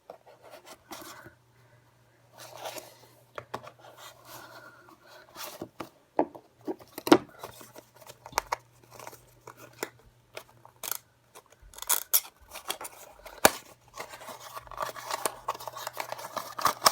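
Tape being cut with scissors and pulled off a package, with irregular sharp snips and clicks and rustling of the packaging.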